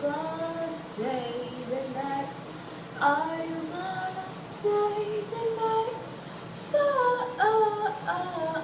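A girl singing on her own, unaccompanied, in short phrases of held notes that slide up and down in pitch.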